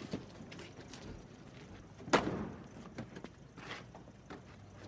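The door of an old sedan slams shut about two seconds in, with lighter clicks and knocks around it.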